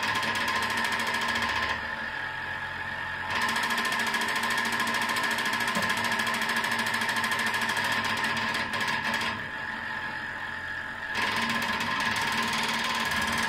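Acoustic guitar mechanically agitated: a dense buzzing rattle over steady ringing tones from the body and strings. The high buzz cuts out twice, about two seconds in and again about nine seconds in, leaving the lower ringing tones for a second or so each time.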